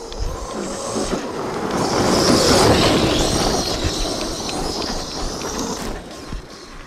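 1/5-scale Arrma Outcast electric RC truck speeding past over dirt, its motor whining and tyres throwing dirt. The sound swells to a peak two to three seconds in and fades away by about six seconds.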